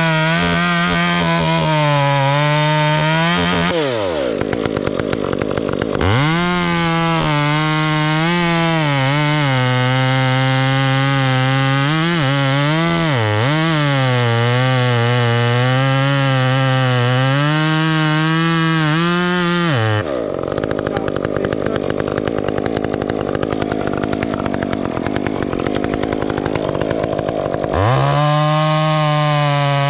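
Two-stroke chainsaw cutting through an oak limb, held at full throttle. It is run hard three times: for about four seconds, then for about fourteen seconds with its pitch sagging and recovering under load, and again near the end. In between it drops back to idle.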